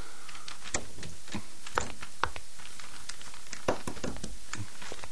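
Sheets of paper being handled and rustled, with scattered light, irregular taps and clicks over a steady hiss.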